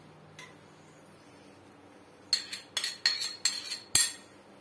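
A spoon scraping and clinking against a small glass bowl as ghee is emptied from it into a pot. There is one light tap just after the start, then a quick run of clinks from about two seconds in, the last and loudest near the end.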